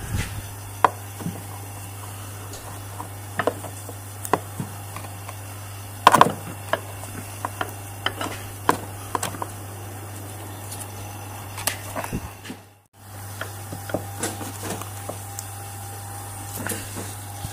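Scattered knocks and clicks of tools and metal suspension parts being handled while a new rear lower arm bush is worked onto the arm. One louder knock comes about six seconds in, over a steady low hum.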